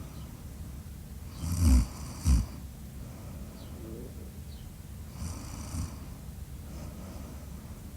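A sleeping person snoring: a loud snore about one and a half seconds in, a short second one right after it, then a softer snore about five seconds in, with quiet breathing between.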